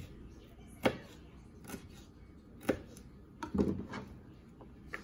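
Kitchen knife dicing a bell pepper on a plastic cutting board: sharp, irregular knocks of the blade on the board about once a second, with a louder, longer clatter about three and a half seconds in.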